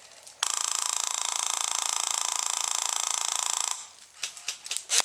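Airsoft electric gun firing one long full-auto burst of about three seconds, a fast even buzz of shots that starts and stops abruptly, followed by a few single sharp shots near the end.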